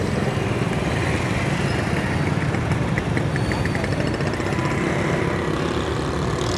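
Busy street ambience: steady traffic noise with vehicle engines running, and a quick run of small clicks near the middle.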